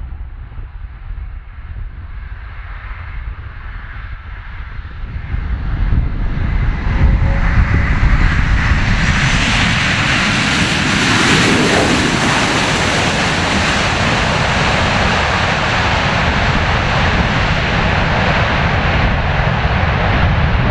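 Airbus A330 jet engines rolling out along the runway just after touchdown, a steady roar that builds strongly from about five seconds in as the airliner passes close, then stays loud.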